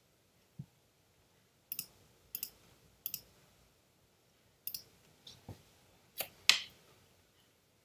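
Sharp computer mouse clicks, about eight of them spaced irregularly, the last one the loudest, after a soft low thump near the start.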